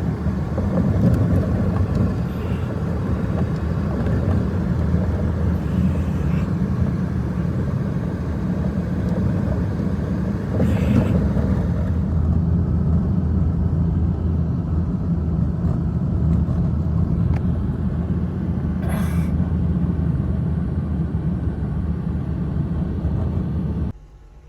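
A steady, loud low rumble that starts and cuts off abruptly, with brief faint hisses about eleven and nineteen seconds in.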